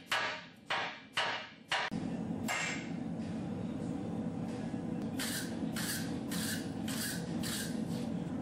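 Two sledgehammers striking hot steel on a swage block in turn: four heavy blows about half a second apart in the first two seconds. After that a steady low hum carries on, with five lighter strikes in a quick, even rhythm about five seconds in.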